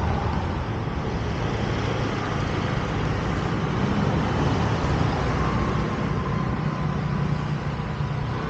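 Street traffic: motor vehicle engines running with steady road noise and a low rumble.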